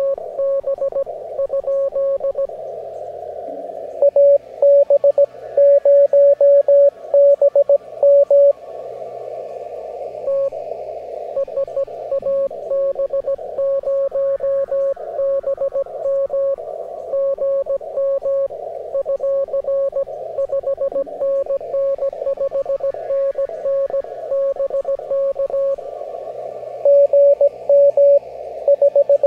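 Morse code (CW) received on an amateur radio: a steady beeping tone keyed on and off in dots and dashes, heard through a narrow receiver filter with band hiss around it. The signal comes in much stronger for a few seconds about four seconds in and again near the end, and a fainter second signal beeps higher in pitch. Soft background music plays underneath.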